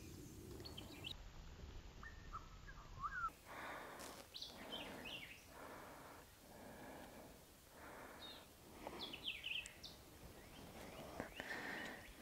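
Faint outdoor ambience with birds chirping in short scattered calls, over a few soft swells of noise.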